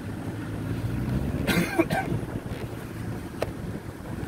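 A vehicle driving along a sandy dirt track, with a low engine and tyre rumble and wind buffeting the microphone held out of the side window. A brief sharp clatter comes about a second and a half in.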